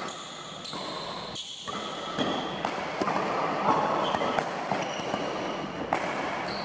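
Doubles badminton rally: repeated sharp racket hits on the shuttlecock, with shoes squeaking briefly in high-pitched chirps and footsteps on the court floor.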